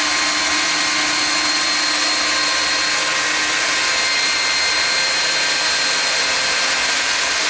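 Loud, steady static-like hiss with a few faint steady tones in it. It cuts off abruptly at the end.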